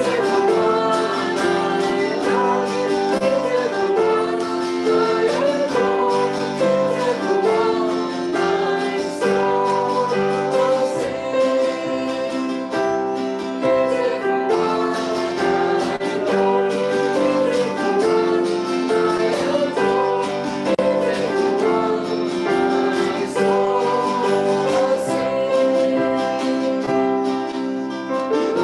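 A contemporary worship song sung by voices, accompanied by guitar and piano, continuing steadily.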